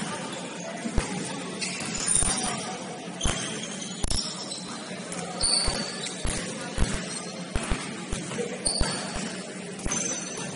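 Basketball game in a gym: the ball bouncing on the court in irregular thumps, with brief high sneaker squeaks in between.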